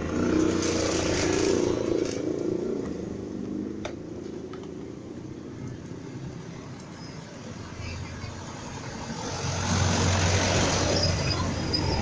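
Street traffic passing close by: a motor scooter goes past at the start, and near the end a small box truck's engine grows louder as it comes up.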